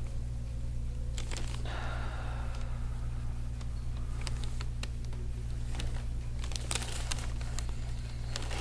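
Gua sha scraper stroking along the oiled skin of a calf, giving scattered small scratchy clicks and crackles in short clusters. A steady low hum runs underneath.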